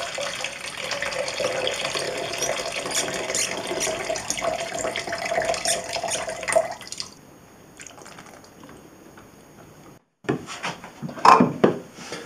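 Spent fixer pouring out of a daylight film developing tank into a plastic measuring jug, a steady splashing stream that stops about seven seconds in. Near the end, a few sharp clunks as the tank is handled.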